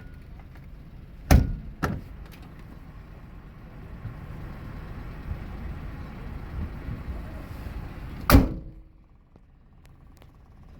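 Car doors shutting over a steady engine idle. There is a loud thud about a second in, a lighter knock half a second later, and the loudest thud near the end. After that last thud the engine sound becomes much quieter.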